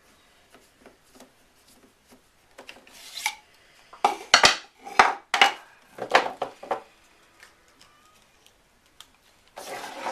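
Screwdriver and hand work on a King Arms M1A1 Thompson airsoft gun: scattered clicks and scraping of parts, with a run of several louder rasping strokes around the middle and another near the end.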